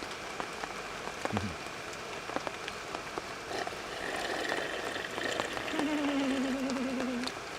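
Steady rain falling in woodland, with scattered individual drops ticking close by. In the second half a faint, drawn-out voice-like sound rises over the rain.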